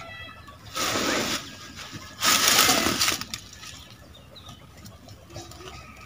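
Dry leaves crackling and rustling as handfuls are fed into a wood fire in a clay stove, in two loud bursts: one about a second in and a longer one at two to three seconds.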